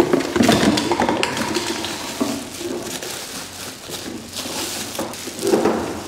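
Clear plastic bag rustling and crinkling in irregular bursts as a boxed steam cleaner body is lifted out and unwrapped, with some knocks of the cardboard box.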